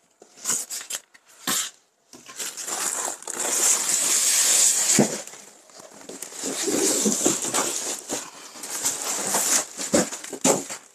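Cardboard carton and plastic wrapping rustling and scraping as an air conditioner's indoor unit is lifted out of its box. A few sharp knocks come in among the rustling.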